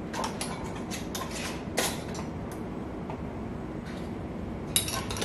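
Metal screw bands being finger-tightened onto glass canning jars: a few light clicks and scrapes, with a sharper couple of clinks near the end.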